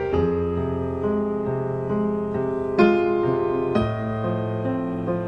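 Background piano music: slow, sustained notes and chords.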